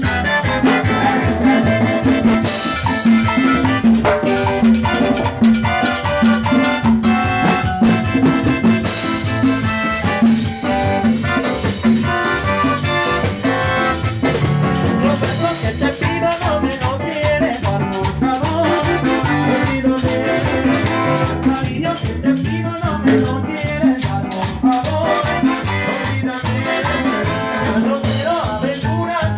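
Latin dance band playing salsa-style music live, over a steady percussion beat.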